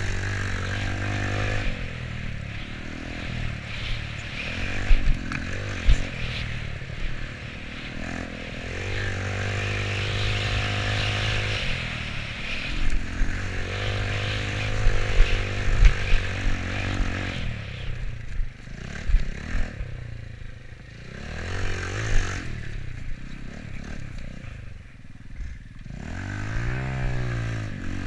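GY6 scooter's single-cylinder four-stroke engine, big-bored to 82cc, revving up and easing off again and again under hard riding. Sharp knocks and clatter from the scooter jolting over bumps cut in several times.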